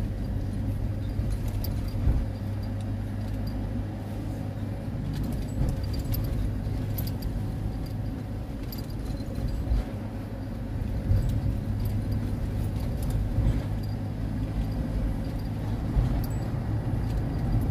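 Steady low engine and road drone heard inside a moving pickup truck's cab, with scattered light clicks and jingles from keys hanging in the cab.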